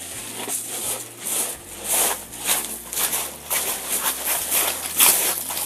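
Footsteps crunching on beach pebbles as several people in boots walk over the shingle, about two crunches a second, the loudest near the end.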